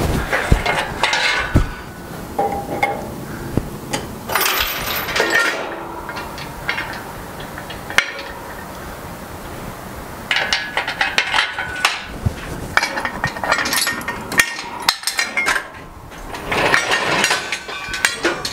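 Heavy air compressor being slid across a steel frame while still hung on a crane chain: irregular metal scraping and clanking, with chain links clinking, in several bursts with short pauses between.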